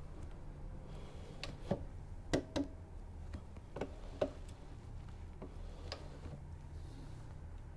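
Irregular light clicks and taps, about seven, as tools and parts are handled on a drill press during chuck alignment, with several close together in the first half. A low steady hum sits underneath.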